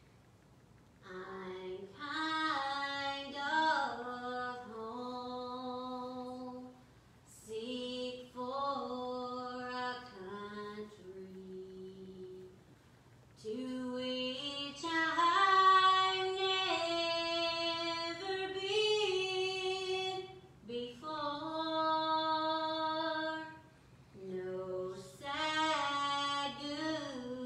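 A woman singing solo without instrumental accompaniment, in phrases of long held notes with short breaths between them.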